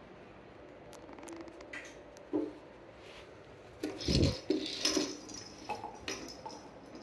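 A small dog jumping up at the person filming: a thump with scuffling about four seconds in, and a few short, sharp dog sounds and patters scattered around it.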